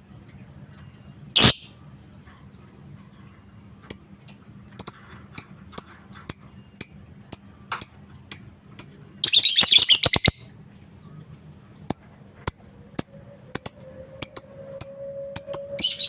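Lovebird calling: one loud call, then a run of short, sharp, high chirps at about two a second, broken by a rapid chattering burst about a second long near the middle and another just before the end.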